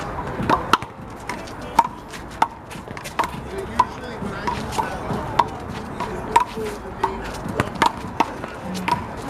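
A rubber handball is struck by hand and smacks off the wall and the court during a rally. It gives a sharp smack about every half second to a second, around fifteen in all.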